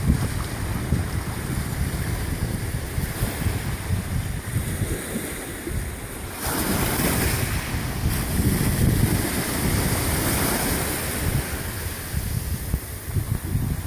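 Wind buffeting the microphone over sea waves at the shore. A louder rushing wash of surf swells about six seconds in and lasts several seconds.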